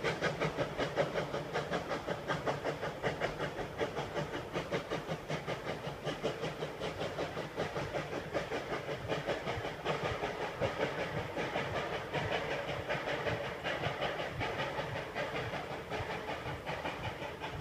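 Baldwin steam locomotive chuffing at an even beat of about four to five exhaust strokes a second as the train pulls away out of sight, the beat easing off slightly in loudness.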